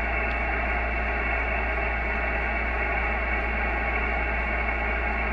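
Steady hiss of band noise and static from the ICOM IC-7300 HF transceiver's speaker, muffled with nothing in its top end, over a constant low hum.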